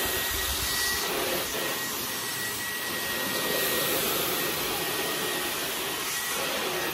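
Dyson V11 Torque Drive cordless stick vacuum running steadily as its small attachment is drawn over a fabric couch cushion: a steady rush of air with a thin high whine.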